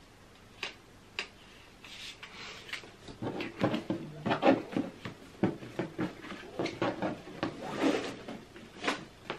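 A ribbon is untied and pulled off a cardboard gift box, and the box is handled, giving a few light clicks and then a run of soft knocks and rustles that are busiest in the second half.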